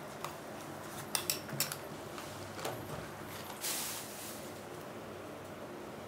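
Stainless-steel spoon clinking against a steel bowl of sliced onions, a few sharp clinks about a second in, then a brief crinkling rustle of a plastic packet a little past the middle.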